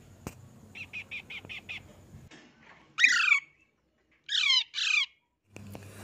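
Young parakeet chicks calling while being hand-fed: a quick run of short, quiet chirps about a second in, then three loud, harsh squawks that slide down in pitch in the second half.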